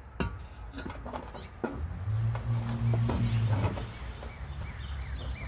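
Steel buffer-stop frame knocking and scraping against the rails as it is shifted along the track, with several sharp knocks in the first two seconds. A low steady hum runs underneath, loudest in the middle.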